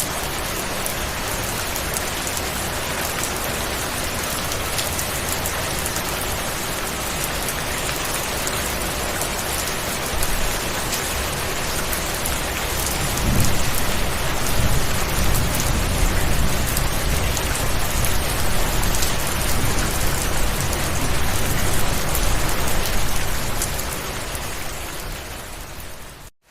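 Steady heavy rain falling, a dense even hiss of drops. About halfway through, a low rumble of distant thunder rolls in under the rain for several seconds. Near the end the whole sound fades down almost to nothing and comes back up.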